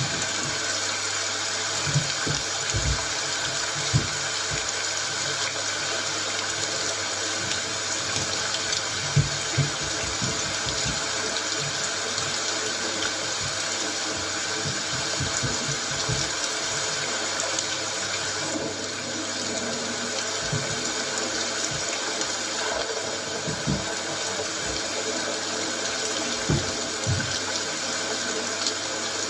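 Steady heavy rain falling, a dense even hiss, with a few short low thuds here and there.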